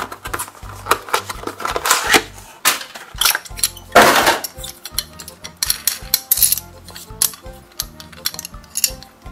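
Clicking, clinking and crinkling as a plastic blister pack is opened and a small Siku die-cast dump truck is handled, with a loud rustle of the packaging about four seconds in. Soft background music underneath.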